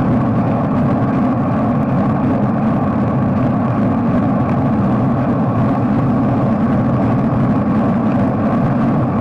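Steady, loud road noise heard from a moving bicycle on a wet city avenue: traffic and tyre noise with no separate events standing out.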